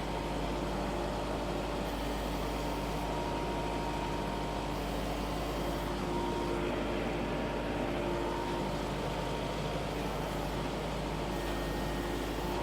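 A vehicle engine running steadily at one speed, a constant drone with a steady hum in it.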